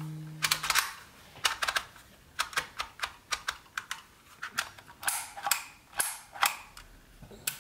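DYMO manual embossing label maker clicking as its character dial is turned and the grip squeezed to emboss letters into plastic tape; sharp clicks come in short, irregular clusters.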